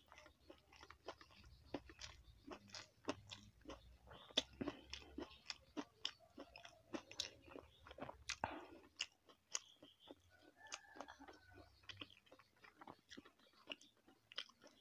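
A person eating close to the microphone: chewing with many sharp, crisp crunches and clicks, one after another.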